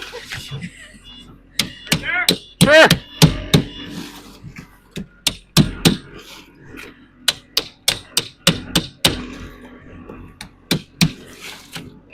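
A run of sharp, irregular knocks and thwacks, a few a second, with a short voice near the start.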